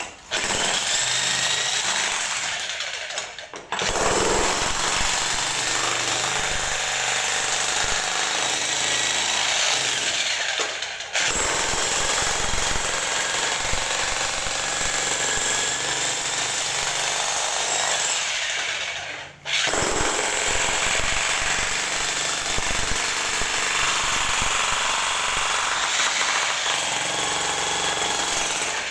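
Jackhammer hammering steadily while breaking into a surface, with three short pauses where it stops and restarts.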